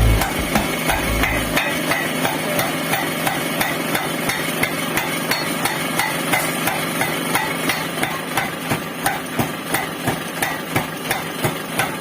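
Mechanical blacksmith's power hammer running, its ram striking in a steady, even rhythm of about two and a half blows a second.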